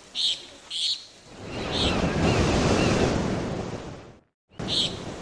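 Ocean wave surging in and washing back out, swelling over about a second and then fading away, with a few short high blips before and after it.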